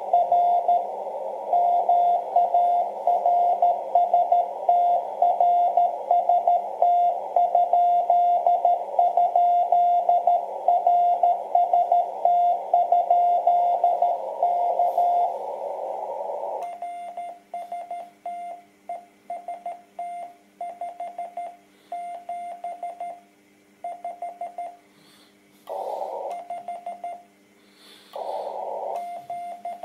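Morse code on a shortwave transceiver on 10.105 MHz (30 m band): a keyed beeping tone in a band of receiver hiss. About 17 seconds in the hiss stops and the keying carries on as a clean sidetone with silent gaps, the sign that the station has switched from receiving to transmitting. Two short bursts of hiss break in near the end.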